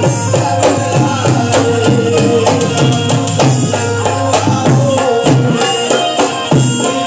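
Live qawwali music, amplified through loudspeakers: held harmonium tones over a fast, steady tabla beat with regular percussive strokes.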